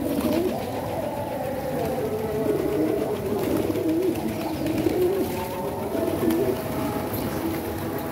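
A flock of pigeons cooing: many low, wavering coos overlap into a steady murmur of calls.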